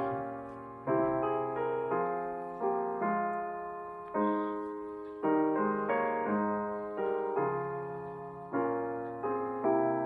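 Slow, gentle piano music: chords struck about once a second, each ringing and fading before the next.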